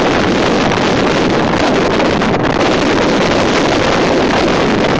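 Mumbai suburban local train running at speed, heard from its open doorway: a loud, steady rush of wind on the microphone over the train's running noise.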